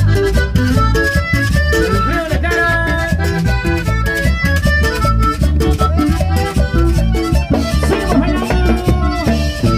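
Live Latin dance band playing: an accordion carries the melody over acoustic guitar, drums with cymbal and the scrape of a metal güiro, on a steady strong beat.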